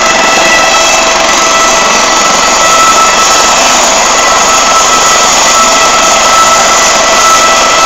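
Eurocopter AS365 Dauphin air ambulance helicopter running on the ground with its main rotor turning. The turbines give a loud, steady high whine over a dense rushing noise.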